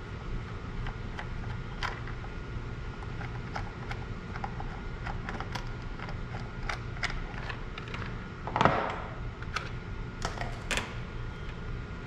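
Small plastic and metal clicks and taps from hands fitting the air cleaner housing onto a small engine's carburetor, with one louder, half-second clatter about eight and a half seconds in.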